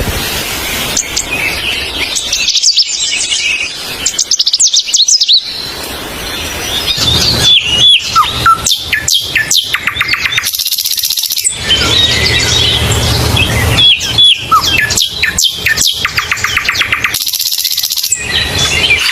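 Songbirds chirping and singing: many quick chirps and short trills that sweep up and down in pitch, from several birds at once.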